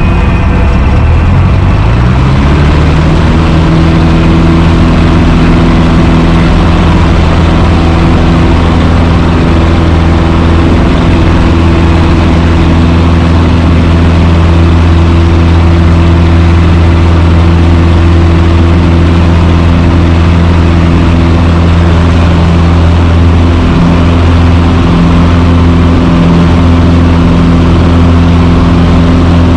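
Cessna 150's four-cylinder Continental O-200 engine and propeller running. The pitch rises over the first few seconds, then settles into a steady drone.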